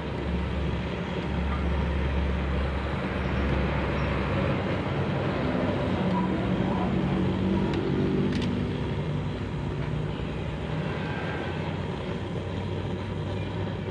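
A motor vehicle engine running, its low hum shifting up and down in pitch over a steady background noise.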